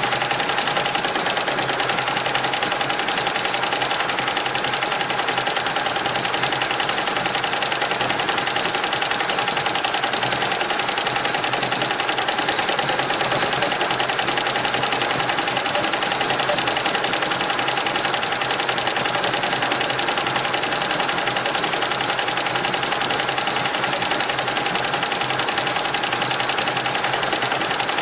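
Richpeace roll-to-roll multi-head embroidery machine running at speed, its needles stitching in a fast, even clatter with a steady hum underneath.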